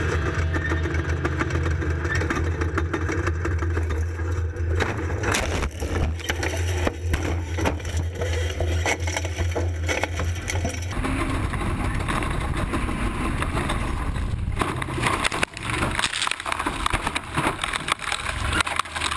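Off-road race truck running hard, with a rapid, irregular clatter of knocks and bangs. Its low engine drone cuts out about eleven seconds in, leaving rattling and scraping noise.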